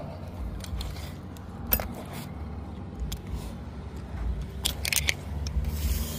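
Light metallic clicks and clinks, a few scattered and a small cluster about five seconds in, over a steady low rumble: magnet-fishing gear and pulled-up nails being handled.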